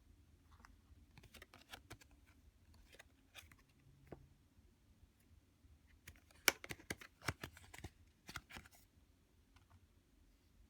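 Tarot cards being handled: faint, scattered light clicks and taps of cards being flipped and set down, with a busier run of taps past the middle.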